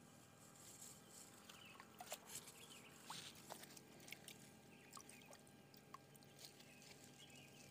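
Near silence outdoors, with scattered faint ticks and small water patters from a mesh hand net being dipped into a shallow ditch and lifted out dripping.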